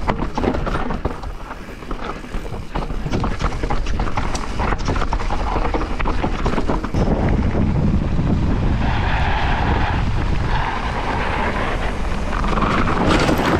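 Wind buffeting a helmet or chest camera's microphone while a Transition Spire mountain bike descends a rough trail at speed, its tyres rumbling on loose dirt. Many sharp knocks and rattles from the bike come through in the first half, and a steadier, heavier rumble follows.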